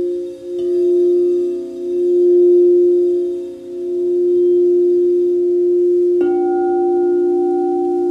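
Crystal singing bowls ringing in long overlapping tones, the low main tone swelling and fading slowly. A second bowl joins softly under a second in, and another is struck about six seconds in, adding a brighter, higher tone.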